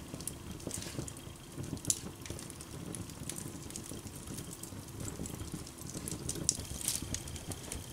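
Wood fire crackling and popping in an open hearth, with scattered sharp snaps, over the steady sizzle of a thin coat of oil heating to smoking in a stamped steel fry pan held above the flames.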